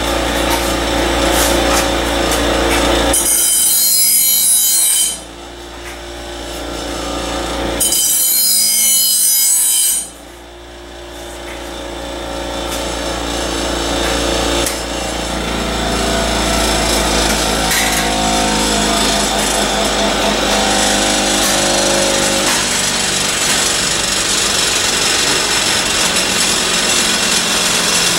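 Bench grinder running while a steel commercial mower blade is held against the grinding wheel to sharpen its cutting edge. There is a steady motor hum under a harsh grinding noise, with two especially shrill passes about three and eight seconds in, each lasting about two seconds and ending abruptly.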